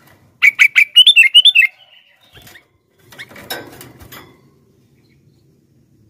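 Caged sooty-headed bulbul giving a quick run of loud, chirping call notes for just over a second, then a rustle of wings as it flutters and hops in the cage about three seconds in.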